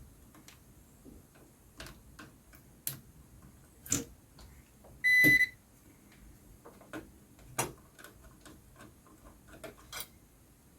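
Digital multimeter on continuity test: scattered light clicks and taps from handling the probes and the part, and one short high beep about five seconds in.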